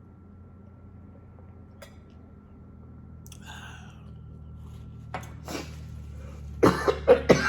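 A few small clicks over a low steady hum, then a person coughing in short, loud bursts near the end.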